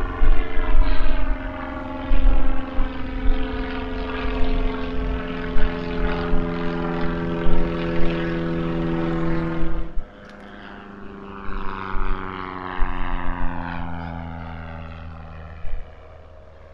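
Small propeller airplane flying overhead, its engine note sinking slowly in pitch. The sound drops abruptly about ten seconds in, then keeps falling and fades away near the end. Wind thumps low and gusty on the microphone.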